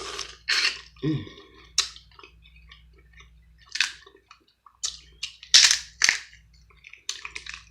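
Close-miked eating of seafood: a series of sharp, wet mouth clicks and smacks with chewing in between, the loudest about five and a half seconds in.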